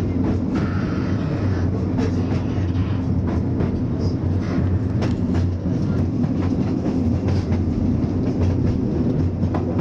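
Oigawa Railway Ikawa Line train running on the track: a steady low drone from the train with a scatter of sharp wheel-on-rail clicks and clacks.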